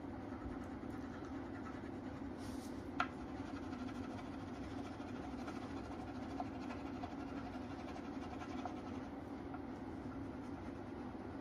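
Colouring strokes scratching on a paper sheet as an area is shaded in, over a steady low hum. One sharp tap about three seconds in.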